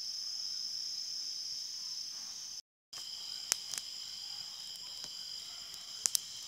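Steady, high-pitched insect chorus. It cuts out for a moment a little over two and a half seconds in, then carries on with a few sharp snaps, two of them close together near the end.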